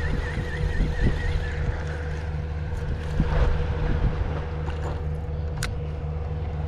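Steady low engine drone running throughout, with a wavering high whistle over it for about the first second.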